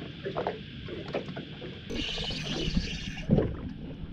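Water lapping and slapping against the hull of a small open boat, with scattered light knocks and splashes.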